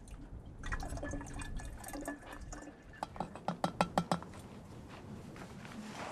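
Water pouring from one canteen into another, splashing and filling, with a quick run of sharp taps about three seconds in.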